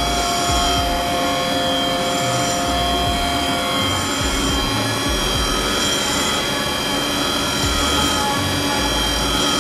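Automatic CNC engraving machine running, machining small metal spectacle-frame parts: a steady high whine over a dense mechanical noise with an uneven low rumble. A lower tone in the whine drops out about four seconds in and comes back near the end.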